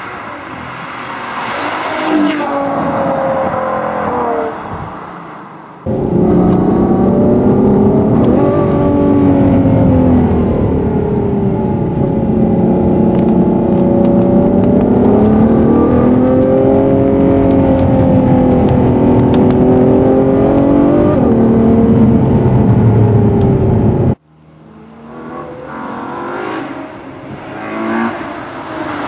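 Ferrari FF's V12 engine, heard first as the car passes with the pitch falling away. Then, about six seconds in, it is heard up close from inside the car, accelerating and easing off with the revs climbing and dropping through gear changes. Near the end it is distant again and grows louder as the car approaches.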